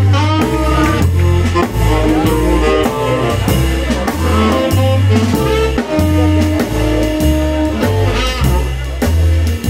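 A small jazz combo playing live: drum kit, electric guitars, saxophone, bass guitar and piano. A walking bass line steps about every half second under the drums, with guitar melody lines and quick runs on top.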